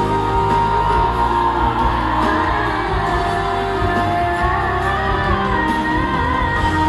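A Thai pop song performed live, female vocals singing over an amplified backing track, heard in a large hall. There is a long held note near the start and another near the end.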